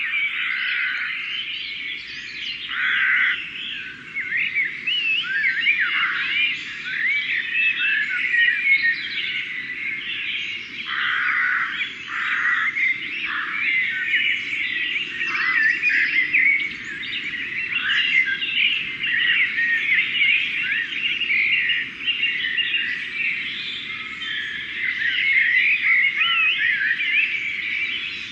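Dawn chorus dominated by blackbirds: many birds singing at once in dense, overlapping phrases, over a faint low rumble.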